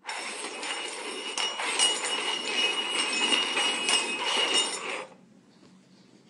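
Three metal cups being shuffled across a wooden floor: a continuous scraping with a metallic ringing and small knocks, stopping suddenly about five seconds in.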